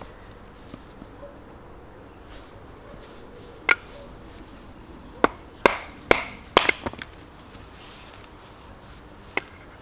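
Large knife being driven into a small, rain-damp log to split it: sharp wooden knocks, first a single one, then a quick run of five, then one more near the end.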